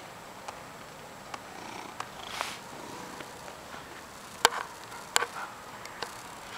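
Domestic cat purring, with a few short sharp clicks over it, the two loudest about four and a half and five seconds in.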